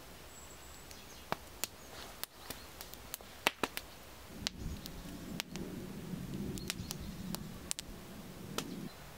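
Small wood campfire crackling, with scattered sharp pops from the burning sticks as the embers are poked and stirred with a stick. From about four seconds in, a low rustling joins the pops until near the end.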